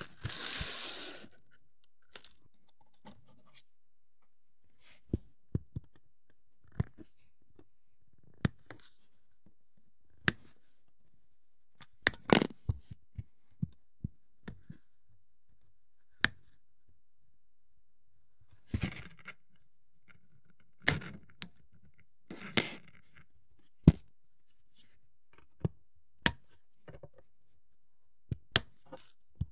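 Plastic miniature parts being clipped from the sprue and handled on a work surface: a brief rustle at the start, then scattered sharp clicks and snips at irregular intervals.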